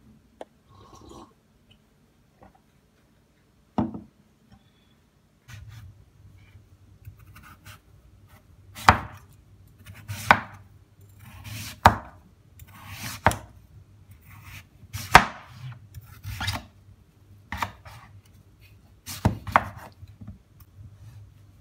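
Large kitchen knife slicing through raw pumpkin onto a wooden cutting board: a sharp knock each time the blade hits the board, about one every second and a half through the second half, with soft scraping of the pieces in between.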